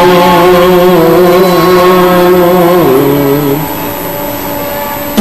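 A man's voice singing long held notes in a devotional chant style. The pitch slides down about three seconds in, and the singing grows somewhat softer soon after.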